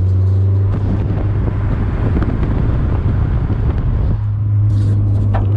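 Car engine running with a steady low drone. About a second in, a rough rushing noise like wind on the microphone covers it for about three seconds, then the steady drone returns.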